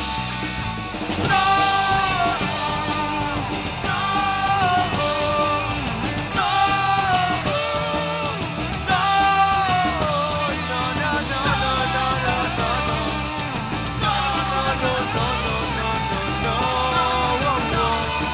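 Punk rock band playing live: distorted electric guitars, electric bass and drum kit, with a melodic line that repeats about every two and a half seconds.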